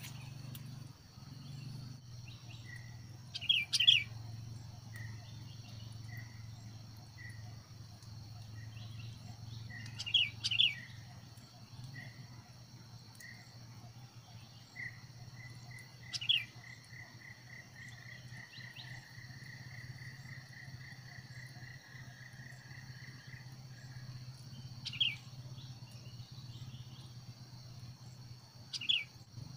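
Sooty-headed bulbuls (kutilang) giving short, loud calls every few seconds. Between them, a separate series of evenly spaced single-pitch notes speeds up into a long steady trill around the middle, over a constant high insect drone.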